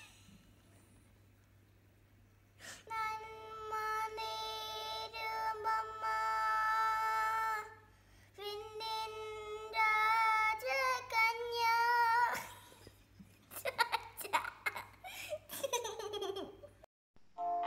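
A young girl's voice singing long held notes unaccompanied, starting after about two and a half seconds of quiet and pausing briefly midway. The singing gives way to short, broken vocal sounds about three seconds before the end.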